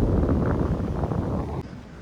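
Wind buffeting the microphone as a loud low rumble that cuts off abruptly about one and a half seconds in.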